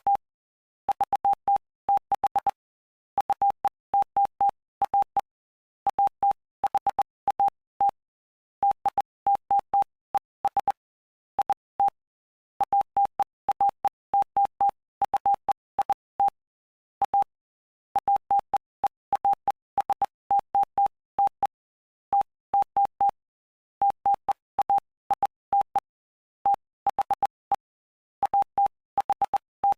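Morse code sent as a single-pitch beep, keyed on and off in short and long beeps grouped into letters and words with brief pauses between them: the Bible text of Mark chapter 8 spelled out in code.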